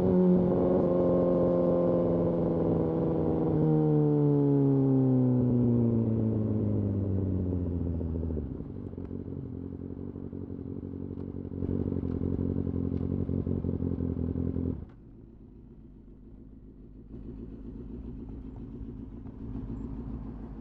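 Kawasaki Ninja ZX-6R's inline-four engine winding down as the bike slows, revs falling steadily over about eight seconds. It then runs steady and low like an idle, and the sound drops sharply about fifteen seconds in.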